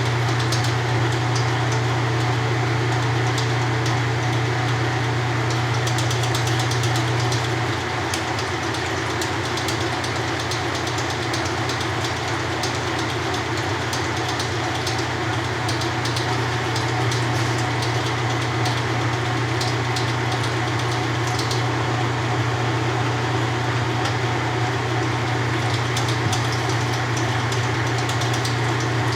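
1993 Kenmore 80 Series direct-drive top-load washer running empty on a dry test, a steady motor hum that drops slightly in level about eight seconds in.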